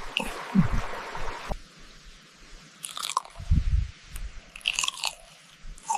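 Close-miked eating: biting into and chewing crisp French fries, with a few sharp crunches. A steady rustling hiss fills the first second and a half.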